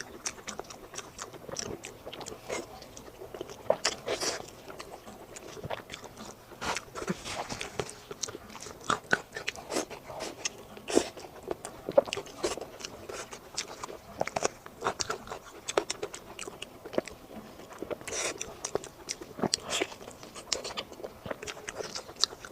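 A person biting and chewing food close to the microphone, with dense, irregular crunches and clicks.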